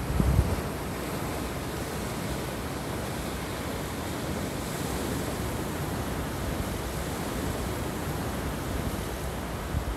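Sea surf breaking and washing around rocks on a stony shore: a steady rush of waves. Wind buffets the microphone with low rumbles for the first half second.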